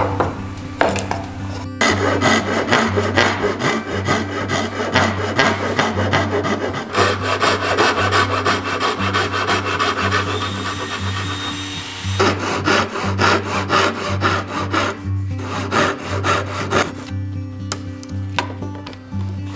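Japanese pull saw cutting dovetail kerfs into a softwood board held in a bench vise, in quick, continuous strokes with a brief pause midway.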